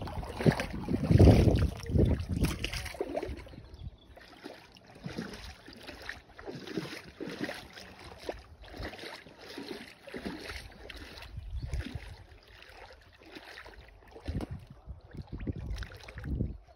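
Small waves lapping and splashing, one swell about every second. Wind buffets the microphone with a heavy rumble in the first few seconds.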